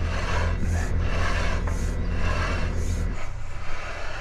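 A long-handled concrete finishing tool scraping over fresh, wet concrete in repeated strokes, about once a second. A steady low engine hum runs underneath and stops about three seconds in.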